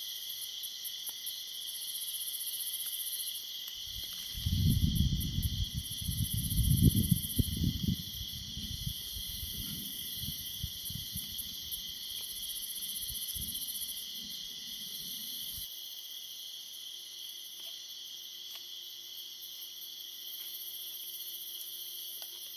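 Steady high trilling of crickets and other night insects. From about four seconds in, a loud, irregular low rumble comes in; it is loudest in its first few seconds and cuts off suddenly after about eleven seconds.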